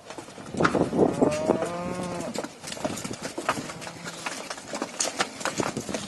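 Dairy cows: one long moo about half a second in, rising then falling in pitch over about two seconds, with scattered knocks of hooves on concrete as the herd walks.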